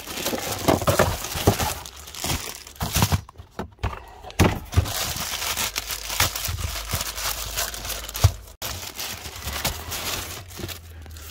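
Plastic wrapping crinkling and rustling as it is handled and torn open, with a few small knocks.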